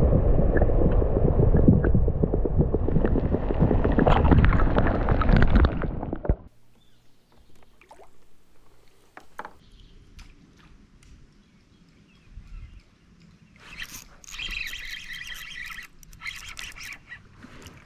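River water sloshing and rushing around a camera held underwater while a smallmouth bass is held and released, cutting off suddenly about six seconds in. After that there are only faint small splashes and clicks, and a high-pitched call near the end.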